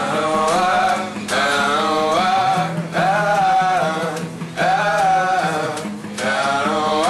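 A small acoustic band playing live: male voices singing over strummed acoustic guitars, among them a resonator guitar. The singing comes in short phrases with brief breaks between them.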